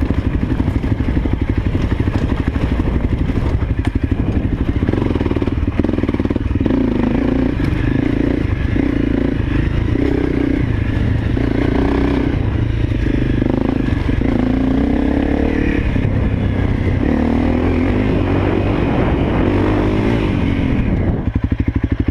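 Honda CRF250L dirt bike's single-cylinder four-stroke engine running on a rocky trail, its note rising and falling about once a second with the throttle. It steadies to an even note shortly before the end.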